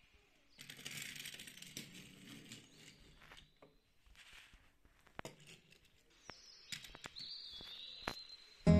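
Faint rustling with a few sharp clicks, then acoustic guitar music starts abruptly near the end.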